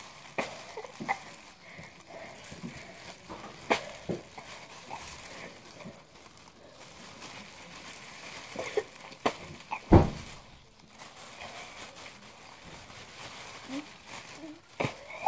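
A person retching and vomiting into a plastic bag, with the bag crinkling and a few short sharp sounds. There is a loud thump about ten seconds in.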